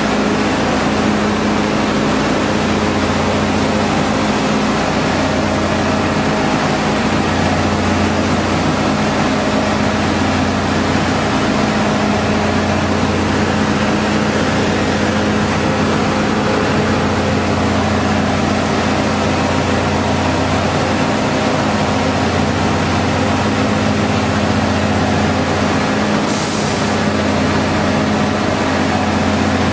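Decanter centrifuge and its solids-discharge screw conveyor running: a loud, steady machine hum with a deep drone under a steady higher tone. A brief hiss near the end.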